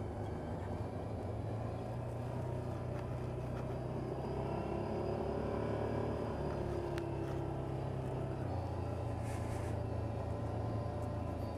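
Yamaha Viking side-by-side's single-cylinder engine running steadily while the vehicle drives along a snowy trail, heard from inside the cab. The engine note swells a little and settles back about halfway through.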